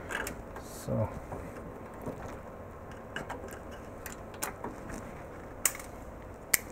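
Screws being taken out of a metal LCD-panel mounting bracket by hand: a few small, sharp metallic clicks and ticks, the two sharpest near the end, over a steady background hum.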